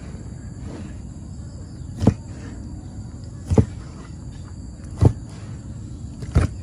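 A cleaver-style kitchen knife chopping down through a squid tube onto a plastic cutting board, cutting it into rings: four sharp knocks about one and a half seconds apart, over a steady background noise.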